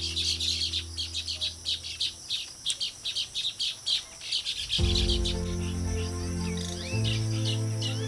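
Baya weavers chattering in rapid, continuous high chirps, over background music of sustained low chords that fades out for a couple of seconds and returns about five seconds in.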